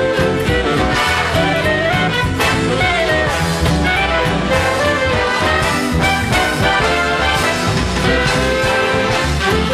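Swing-style instrumental music with a steady beat.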